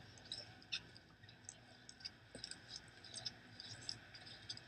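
Faint, irregular light clicks and ticks, several a second, over a low steady background hum.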